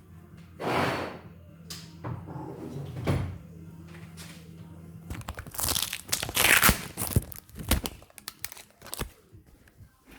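Handling noises: knocks, clunks and rustling as parts are moved about, most of them packed into the second half, over a steady low hum that stops about halfway through.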